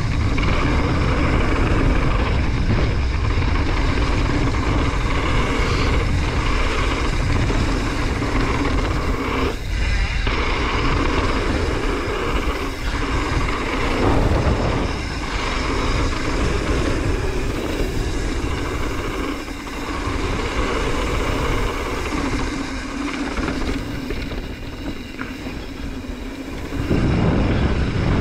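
Mountain bike riding downhill on a dirt trail: steady wind rush over the camera microphone and tyre rumble, with a few knocks from the bike over bumps.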